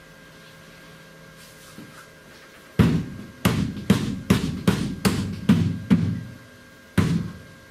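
Dead-blow hammer striking the truck's fuel tank: a quiet start, then about eight sharp blows at two or three a second and one more after a short pause. The tank is being knocked to jar a failing, sticking in-tank fuel pump into running.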